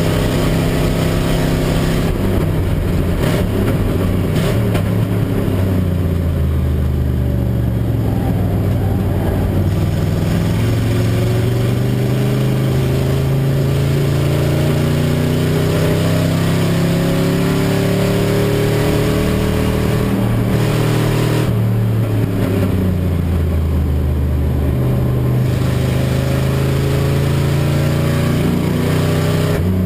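Race car engine heard from inside the cockpit under hard running, its note climbing slowly in pitch as it pulls, dropping when the driver lifts or shifts, then climbing again, several times over. The engine is running on only six and a half cylinders.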